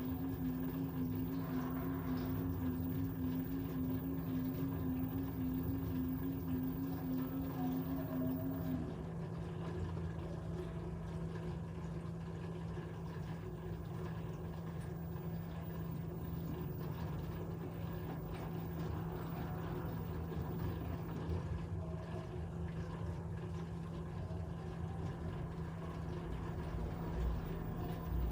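LG 13 kg front-loading washer-dryer running, a steady motor hum with a second, slightly higher whine that stops about nine seconds in.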